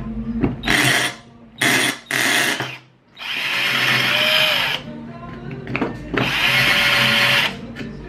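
Power drill boring into a vintage camera body, run in bursts: three short runs, then two longer runs of about a second and a half each, with a faint whine in the long runs.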